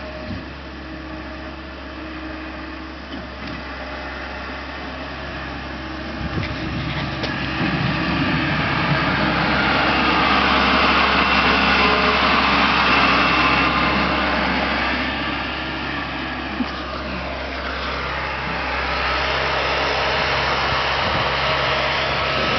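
Engine of a snow-clearing vehicle running and working, growing louder about a third of the way in, easing off briefly, then rising again near the end.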